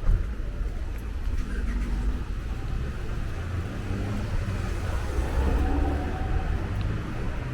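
Street ambience: a steady low rumble of road traffic, with faint indistinct sounds in the middle range around the middle.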